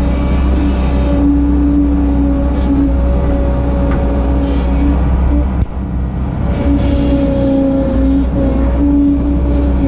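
Bobcat 743 skid steer's engine running steadily at high revs while working, with a brief dip in loudness a little past halfway.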